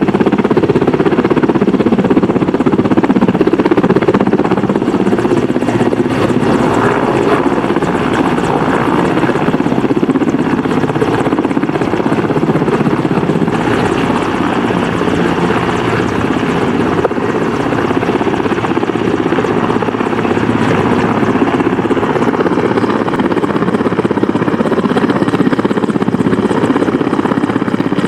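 Mil Mi-171Sh twin-turboshaft transport helicopter running at hover power close to the ground, its engine and main-rotor noise loud and steady throughout.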